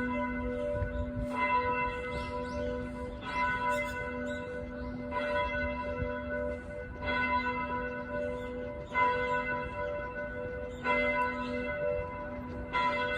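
A single church bell tolling, struck about every two seconds with the same pitch each time, each stroke ringing on into the next. It is the bell of Kobe Eikō Church.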